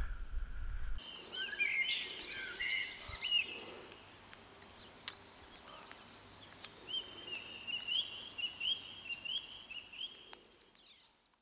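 Low wind rumble on the camera cuts off about a second in, then songbirds chirp and sing in short, varied calls and repeated whistled phrases, with a few sharp clicks among them.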